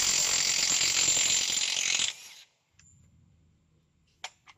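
Keyang cordless high-torque impact wrench hammering a 41 mm truck wheel nut loose, with a dense rattle that cuts off sharply about two seconds in. Two short light clicks follow near the end.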